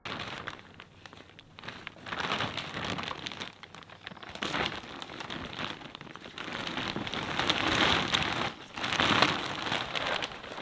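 Black plastic bag crinkling and rustling as it is lifted and tipped, with loose soil pouring and pattering out of it onto a raised garden bed. The sound comes in waves and is loudest a little before the end.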